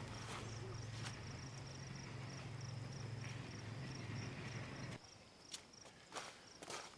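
Insects chirping, a high pulse repeating evenly, over a steady low hum that cuts off suddenly about five seconds in; a few footsteps follow near the end.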